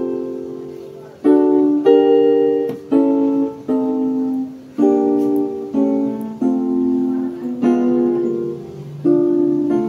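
Yamaha portable keyboard on its grand piano voice, playing a slow chord progression. Chords are struck about once a second, each left to ring and fade before the next.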